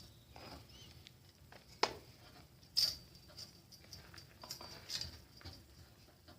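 Scattered light clicks and knocks of small metal parts being handled while a dune cycle's front fork is taken apart. There is a sharp click about two seconds in and a short scrape about a second later.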